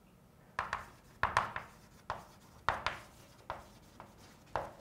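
Chalk writing on a chalkboard: a quick run of short strokes and taps, about two a second, as a word is written out.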